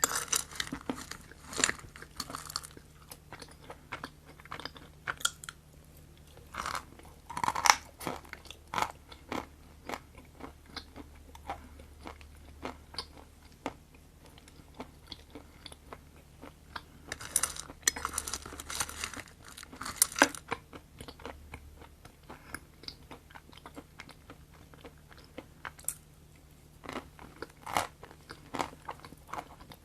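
Close-miked biting and chewing of crunchy food: clusters of crisp crunches, loudest near the start, about a quarter of the way in, past the middle and near the end, with quieter wet chewing between.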